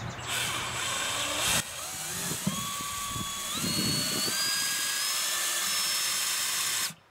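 Cordless drill boring a drainage hole through the bottom of a plastic plant pot with a large bit. A short rough hiss comes first, then the motor's whine climbs in steps as it speeds up, and it cuts off suddenly near the end.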